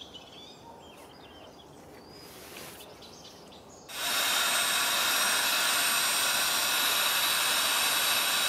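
Handheld corded electric air pump switching on about four seconds in and running steadily with a whirring hiss, blowing air into an inflatable air mattress.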